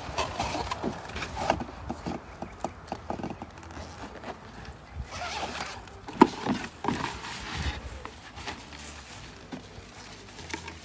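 Cardboard box and packaging being handled and unpacked: irregular rustling, scraping and light knocks as a padded gig bag is pulled out of the box.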